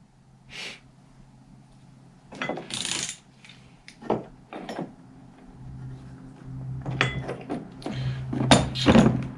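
Metal clinks and knocks at a steel bench vise as a socket and the bent end of a tailgate hinge are handled, set in the jaws and tapped, in irregular strikes that come more often toward the end. A low steady hum comes in about halfway through.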